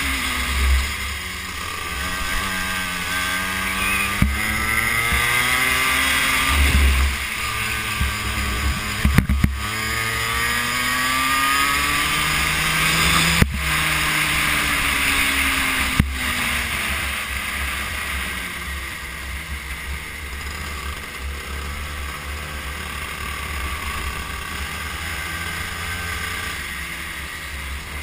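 Go-kart engine heard from on board, climbing in pitch along the straights and dropping off into the corners, several times over. Heavy wind rumble on the camera microphone, with a few sharp knocks.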